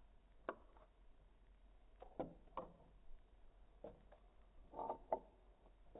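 Faint clicks and taps of small plastic robot-figure parts being handled and fitted together over a wooden tabletop: a few separate knocks, with a cluster about five seconds in that is the loudest.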